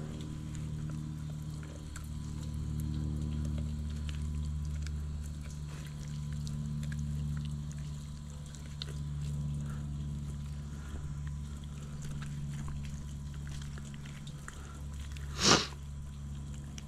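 Faint wet handling sounds of raw flounder flesh being peeled and rolled off the bones by hand, over a steady low hum. A single short, loud knock-like sound comes about fifteen seconds in.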